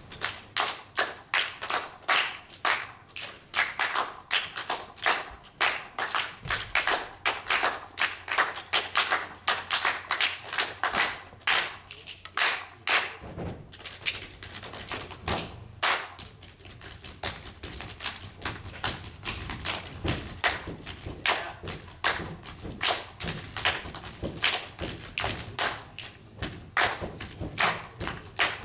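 Percussion ensemble playing a rhythmic piece of sharp taps and thumps, several strikes a second.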